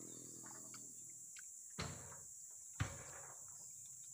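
Two heavy thuds about a second apart, oil palm fruit bunches landing in a truck bed during loading, over a steady high chorus of insects.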